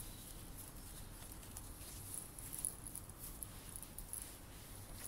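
Faint handling noise of a wedge sandal being turned over in the hands: scattered small clicks and light rustles from its straps and small metal buckle, with one sharper click about halfway through.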